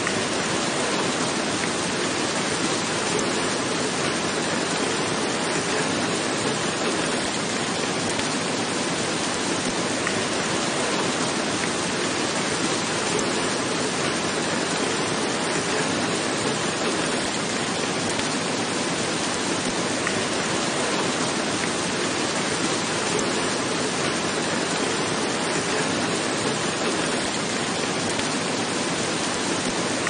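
Rain falling steadily: an even, unbroken hiss of water.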